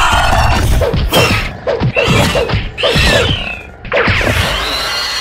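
Edited-in cartoon fight sound effects: a rapid run of punches, whacks and crashes, with pitched creature cries that rise and fall among them.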